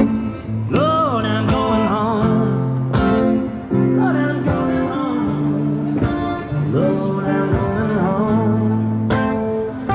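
Street musicians playing guitars with a man singing, his held notes wavering.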